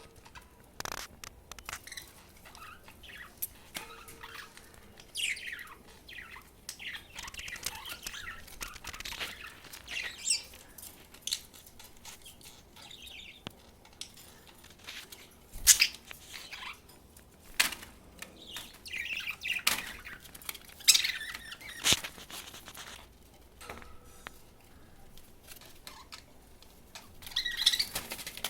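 Budgerigar chick giving soft, short chirps that slide up and down in pitch, in scattered clusters, among sharp clicks; the loudest click comes about halfway through.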